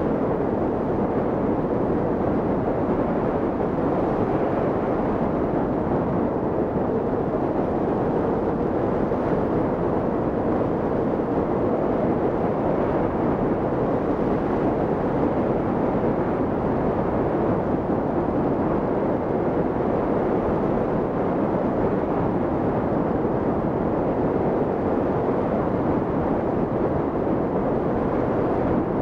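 Steady rush of wind from a hang glider's airflow hitting the microphone in flight: an even, unbroken noise.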